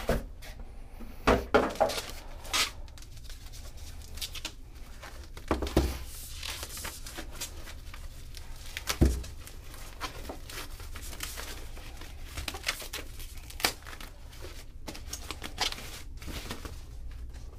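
Thin plastic bag crinkling and rustling as it is unwrapped from a MIDI pad controller. A few dull knocks from handling the box and unit come through, the loudest about nine seconds in.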